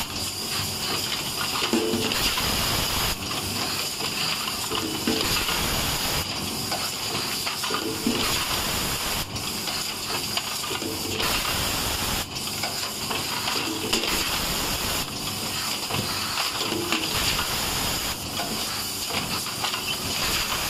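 Pneumatic foil-liner inserting machine for bottle caps running through its cycle. There is a steady compressed-air hiss, and a short mechanical hum and change in the hiss repeats about every three seconds as the rotary table indexes and the stations actuate.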